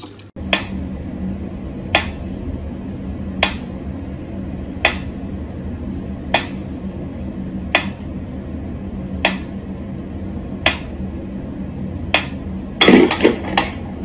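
Pyramid-style mechanical metronome ticking slowly and evenly, about one tick every second and a half. Near the end comes a short burst of louder clattering knocks.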